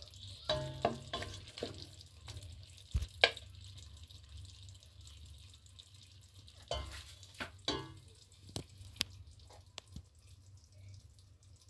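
A wooden spatula scooping chicken adobo out of a stainless steel pot onto a plate: scattered scrapes and knocks against the pot and plate, over a low steady hum.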